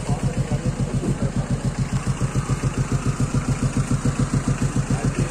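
Truck engine idling with a steady low throb of about eight beats a second.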